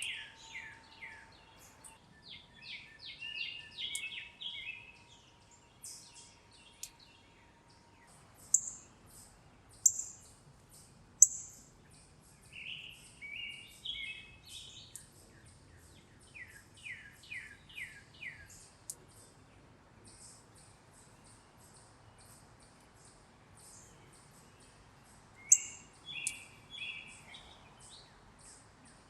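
Wild songbirds singing and calling: repeated series of short down-slurred whistled notes, with several loud, sharp high chips.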